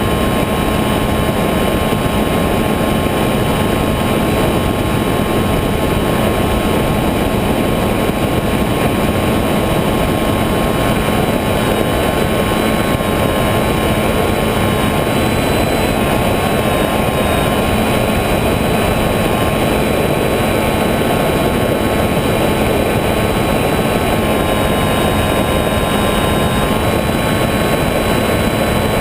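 Electric motor and propeller of an FPV radio-controlled model aircraft in flight: a steady whine over rushing air noise, its pitch shifting slightly with the throttle about halfway through and again near the end.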